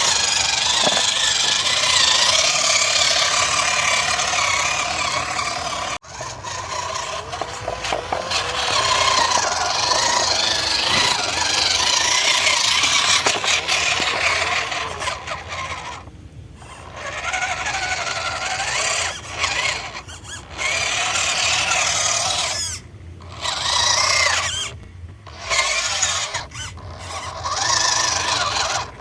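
RC truck's small electric motor and gearbox whining under load, the pitch wavering up and down as it runs. The motor stops and starts again several times in the second half.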